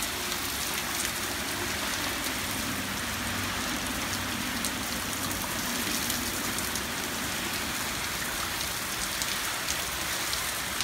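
Heavy rain pouring steadily, with scattered sharp drop hits close by.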